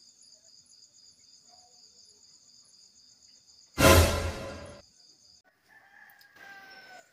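A heavy cinematic boom hit with a long fading tail about four seconds in, over a steady high pulsing tone that cuts off soon after; near the end a rooster crows once, its call falling in pitch.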